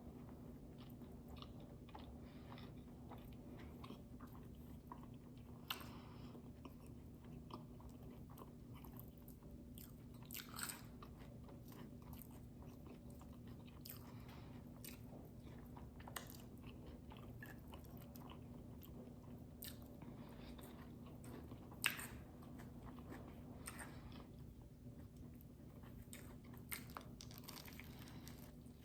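Close-miked eating sounds: chewing and biting into a bacon and avocado breakfast sandwich and fries, with scattered short crunches and mouth clicks, the sharpest about 22 seconds in.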